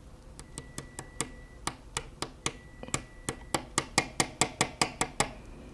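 Rapid, evenly spaced small clicks, about five a second in short runs and louder toward the end, as a snap-off utility blade is worked back into the Brother SE400 thread cutter's plastic knife unit.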